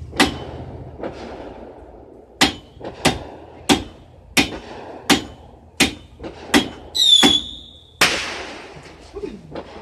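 Backyard consumer fireworks going off: a string of sharp bangs, most about two-thirds of a second apart, then a high whistle about seven seconds in and a louder burst at eight seconds that fades out in a long hiss.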